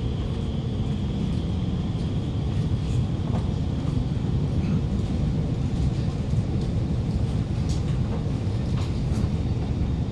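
Cabin noise inside an Alstom Movia R151 metro car as it slows into a station: a steady low rumble of wheels, running gear and motors, with a faint high whine in the first second and a few light clicks.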